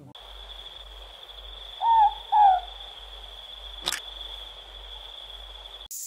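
Ruru (morepork owl) giving its two-note 'more-pork' call once, two short hoots about half a second apart, over a steady high-pitched background tone. A single sharp click about four seconds in.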